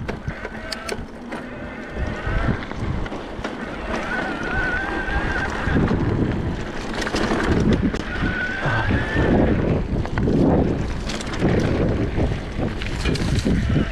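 Mountain bike tyres rumbling and rattling over a dirt singletrack on a descent, with wind buffeting the microphone in surges. A brief high wavering whine breaks in about four seconds in, again about eight seconds in, and at the very end.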